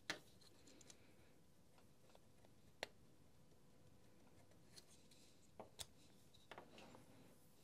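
Near silence with a few faint, sharp clicks and taps: the loudest right at the start, one about three seconds in, and a small cluster later on. These come from the plastic housing halves and small internal parts of a Makita DTM52 cordless multitool being handled during disassembly.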